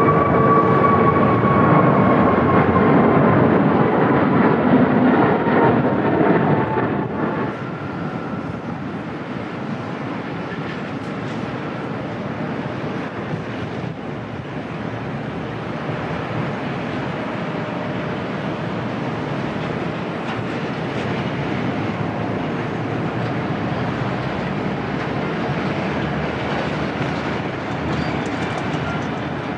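Jet airliner engines with a whining tone that falls slowly in pitch and fades over the first seven seconds, followed by a steady rumbling noise of wind and distant jet engines.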